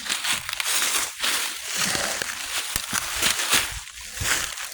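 Irregular crunching, crackling and scraping on frozen ground, a close series of sharp knocks over a hiss.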